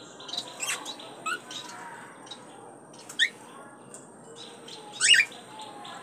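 Male cockatiel singing: short, sharp rising whistles and chirps, the loudest about three seconds in and again about five seconds in. Behind them a rapid, even pulsing chirr runs at the start, breaks off, and resumes near the end.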